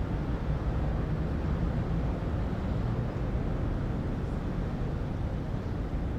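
City skyline ambience: a steady low rumble of distant traffic, with no single sound standing out.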